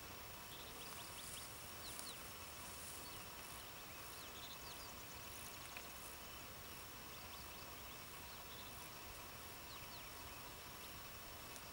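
Faint open-country ambience: a steady low hiss with scattered short, high, rising chirps throughout.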